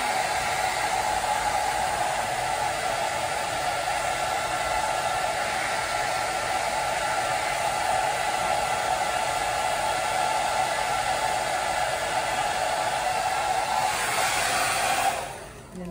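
Handheld hair dryer running steadily at full blast, blown onto freshly glued quick-weave tracks to set the bonding glue. It switches off abruptly shortly before the end.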